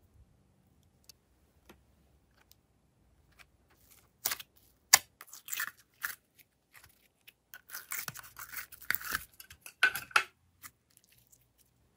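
Glossy slime being handled, pulled and squeezed by hand, making sticky clicks and pops. A few faint ticks come first, then from about four seconds in the popping comes in clusters, densest just before it stops at about ten and a half seconds.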